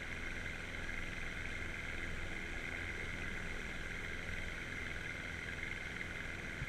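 A boat's outboard motor running steadily at low speed while the boat is under way.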